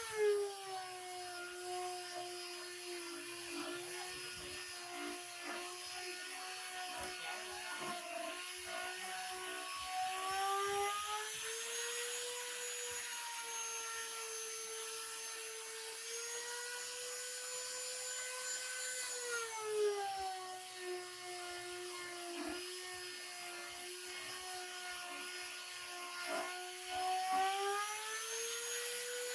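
A high-pitched electric power tool running steadily on wood or resin. Its pitch drops twice and climbs back each time, as the motor slows when pressed into the work and speeds up when eased off.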